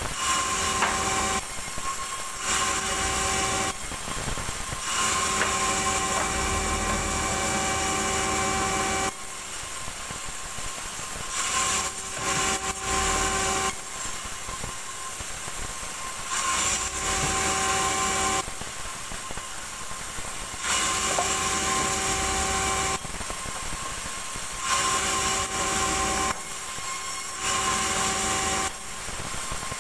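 Large band sawmill running without a break. Each time the blade cuts through a small log it gives a louder, high-pitched whine. Between cuts, while the log is pulled back and reset, it runs more quietly. This happens about seven or eight times, a few seconds apart.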